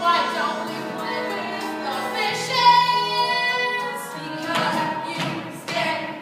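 Young voices singing a stage musical number over backing music, with one long held note about halfway through.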